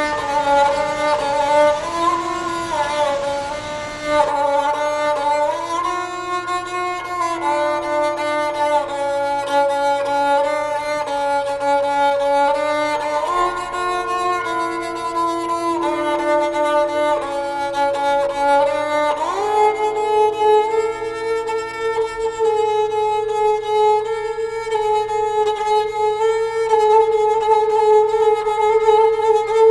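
Slow instrumental background music led by a bowed string melody in long held notes. About nineteen seconds in, the melody slides up into one long sustained note.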